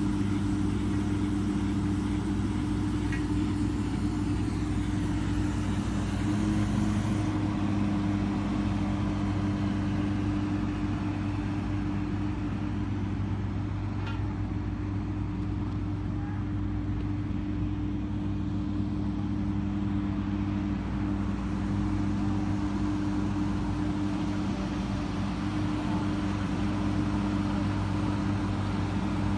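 Engine or motor of a brick-making machine running steadily, a constant low hum.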